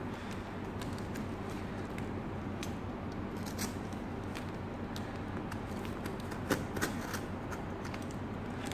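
Packing tape on a cardboard parcel being cut and scraped with a box cutter, with cardboard rubbing and a few sharp clicks around the middle and latter half.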